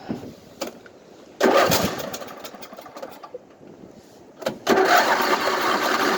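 Starter cranking the engine of a 1998 Craftsman LT1000 riding mower in two tries, about a second and a half in and again from about four and a half seconds in, without it catching: a hard-starting engine.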